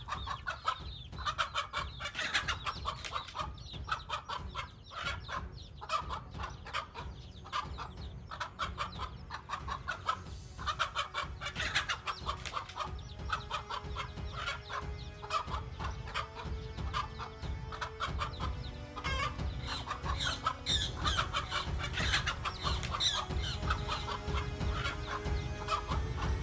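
Chickens clucking and squawking, many short calls in quick succession, over a steady low rumble.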